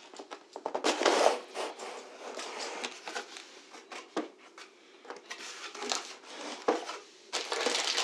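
Cardboard box being opened and handled, with irregular scraping, rubbing and light knocks of cardboard. Near the end comes the crinkling of plastic bags as the packed cables are grabbed.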